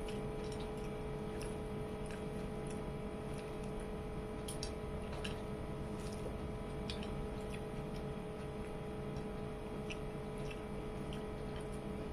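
Faint, irregular little clicks of fingers and nails against a plate as rice is mixed by hand, over a steady electrical hum in the room.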